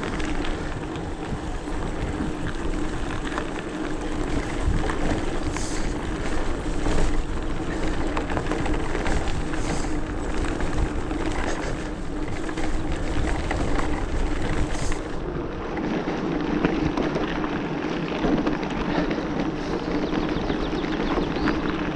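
Hardtail e-mountain bike being ridden along a forest trail: steady rolling noise with a continuous hum and many small clicks and rattles from the bike going over rough ground. About two-thirds of the way through, the deep rumble drops away and the hum comes forward.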